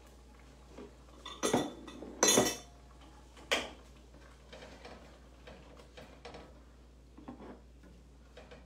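A bowl and kitchen utensils clattering and clinking as soup is served. Three louder knocks come in the first four seconds, then quieter clinks.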